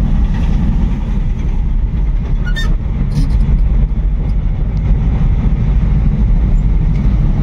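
Small goods vehicle's engine running as it is driven slowly along the road, a steady low rumble heard from the driver's seat.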